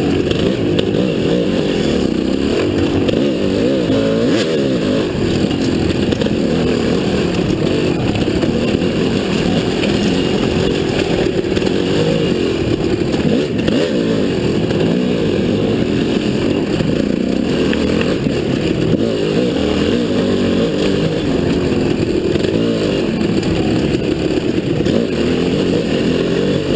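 Dirt bike engine running under the rider, its pitch rising and falling with the throttle as it rides a rough trail.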